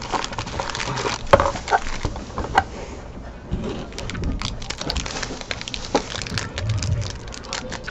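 Handling of a cardboard trading-card box and a foil-wrapped card pack: the pack is slid out of the box, then its foil wrapper is worked open. Irregular crinkling, scraping and clicking, with the sharpest click about a second in.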